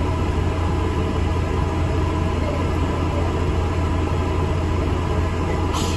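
Inside a moving ADL Enviro 400 MMC double-decker bus: steady low engine and road rumble. A brief hiss comes near the end.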